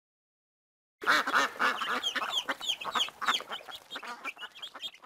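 A group of ducklings calling: many short, overlapping calls start about a second in and thin out and fade near the end.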